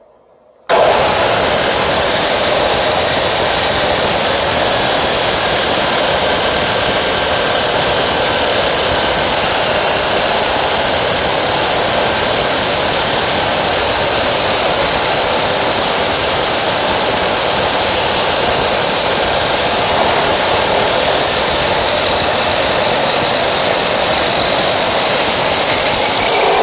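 Abrasive chop saw's electric motor switched on just under a second in, then running at full speed as a loud, steady high-pitched whine.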